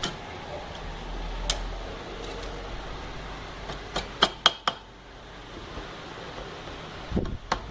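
Sharp metallic taps and clinks of engine parts being handled as a motorcycle cylinder head is fitted by hand: one click about a second and a half in, then four quick taps, one with a brief ring, and more taps near the end.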